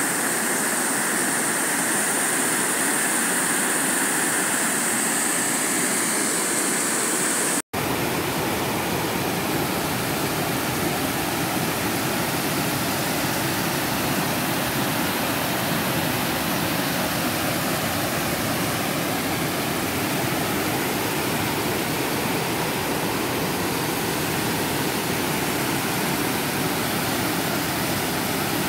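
Floodwater pouring over a dam spillway in a steady, loud rush. The sound breaks off for a moment about eight seconds in and resumes as a second spillway's rush, a little duller in tone.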